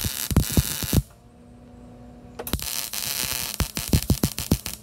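MIG welder arc crackling and spitting as a steel hinge is welded to a stainless steel plate, in two short runs: the arc stops about a second in, leaving a steady hum, and starts again about halfway through.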